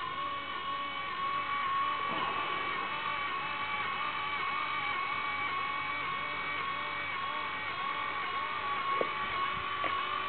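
Blade mCPx micro RC helicopter's electric main and tail rotor motors spinning on the ground, a steady high whine with a lower tone that wavers up and down over and over as the helicopter pulses around, which the owner suspects is an electronics fault. Two light taps near the end.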